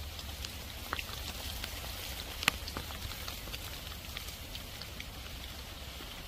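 Heavy downpour: steady hiss of pouring rain with many individual drops ticking close by, and one sharper, louder tap about two and a half seconds in.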